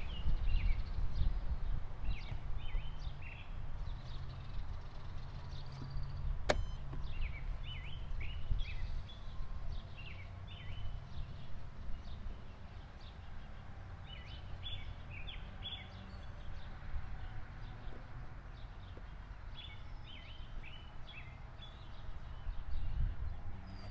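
Small birds chirping repeatedly over a steady low rumble. One sharp click sounds about six and a half seconds in as a chess move is made.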